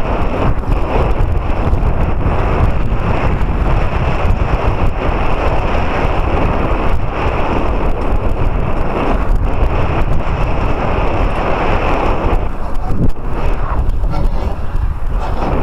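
Strong wind buffeting the microphone of a body-worn camera, a loud steady rumbling noise, with one sharper knock near the end.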